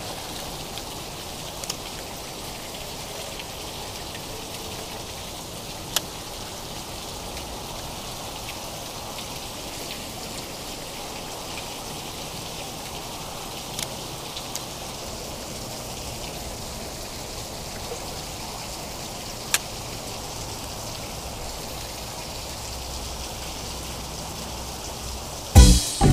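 Water steadily spattering and trickling as it leaks through the cracks of a closed spillway gate. A few sharp clicks stand out, one of them about six seconds in.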